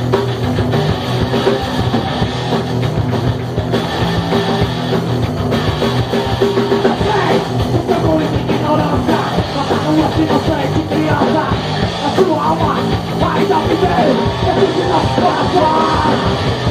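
Loud punk rock music playing steadily, with a busier, more agitated stretch from about halfway through.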